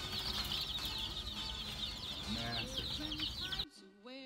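A crowd of baby chicks peeping continuously, many high, short peeps overlapping; it cuts off abruptly near the end.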